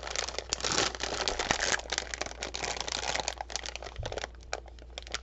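Plastic snack packets crinkling and rustling as they are handled and a bag of sweets is pulled out, dense irregular crackles that die down about four seconds in.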